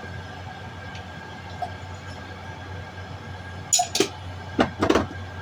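A few sharp clinks and knocks of kitchenware close together about four seconds in, over a steady low hum.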